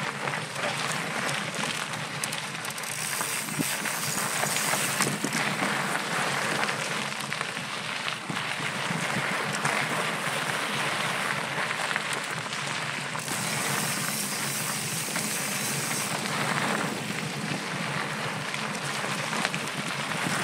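Mountain bike ridden along a loose dirt and gravel trail: a steady rush of tyres and wind, with many small knocks and rattles from the bike over bumps.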